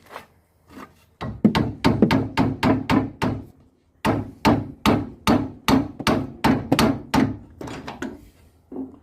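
Repeated hammer blows in two quick runs of about three to four a second, with a brief pause between them and softer blows near the end. They fall on a tight bolt while a BMW 320's brake caliper is being undone.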